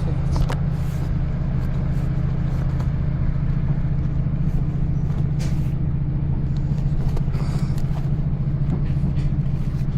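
Diesel multiple unit's underfloor engine running steadily, heard from inside the carriage as a constant low throbbing hum, with a few light clicks and knocks on top.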